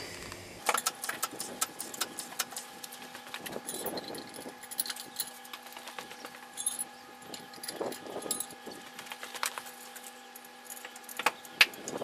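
Light metallic clicks and rattles from a trolley jack and its long handle being worked under the front of a car, with a few louder scrapes.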